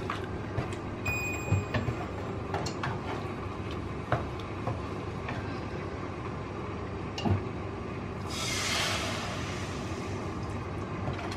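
Wooden spatula stirring a thick egg curry gravy in a pan, with scattered light knocks of the spatula against the pan over a steady background rumble. A short high tone sounds about a second in, and a brief hiss comes near the end.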